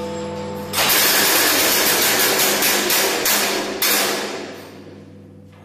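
A bell's hum rings on and is cut off under a second in by the loud, rapid clatter of the Great Clock's striking mechanism running, its gear train rattling. A second jolt comes near four seconds in, then the clatter fades away.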